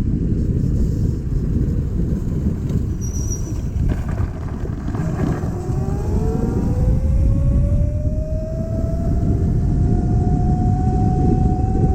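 Vespa scooter riding, with heavy wind rumble on the microphone; from about five seconds in a whine rises steadily in pitch as the scooter speeds up.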